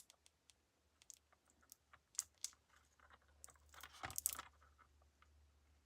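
Faint scattered clicks and crinkles of small craft pieces being handled, with a denser cluster about four seconds in, over a low steady hum.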